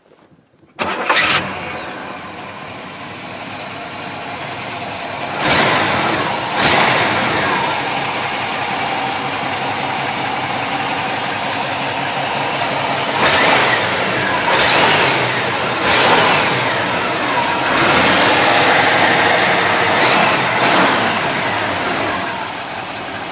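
1964 Cadillac's rebuilt 429 V8 starting about a second in, loud as it catches, then running steadily at idle. Several times it briefly gets louder.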